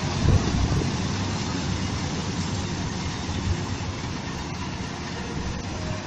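Combine harvester running while it harvests: a steady engine-and-threshing drone that grows slightly fainter as the machine moves away.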